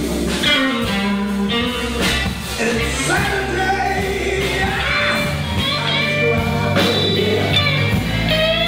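Live rock band playing with electric guitars, bass and drums, while the lead singer sings over them with several long held notes.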